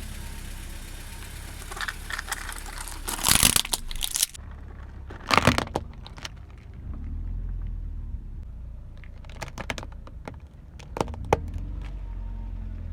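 Car tyres rolling over and crushing crunchy objects: loud crackling crunches about three seconds in and again near the middle, then a run of sharp cracks, over the steady low rumble of the car.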